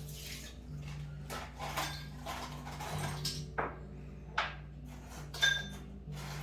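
Several light clinks and knocks, a few with a brief ringing tone, the loudest about five and a half seconds in, over quiet background music.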